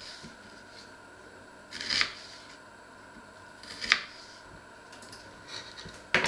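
Kitchen knife slicing through an onion onto a wooden cutting board, a short crisp cut about every two seconds, three in all, then a sharper wooden knock near the end.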